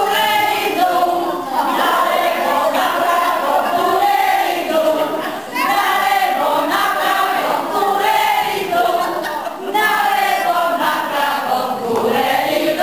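A group of people, mostly women, singing a song together without instruments, in a lively, uneven group chorus.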